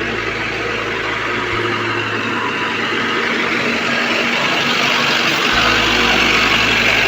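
Engine of heavy road-construction machinery running steadily, growing gradually louder.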